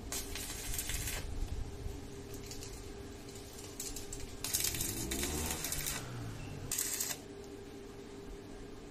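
Electric arc welding on a steel drum: three separate bursts of arc crackle, about a second long at the start, a longer and louder one around the middle, and a short one just after, with a steady low hum underneath.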